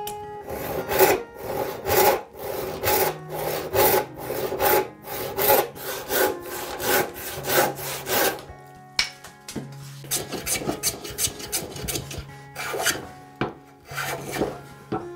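Hand saw cutting through a bark-covered log section in steady strokes, about two a second. Near the end come a few separate strokes of a metal hand plane shaving a board.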